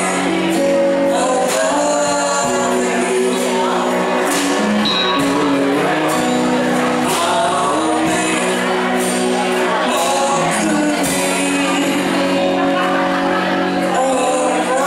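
A band playing a slow song live: a woman singing lead over acoustic guitar, electric guitar and drums.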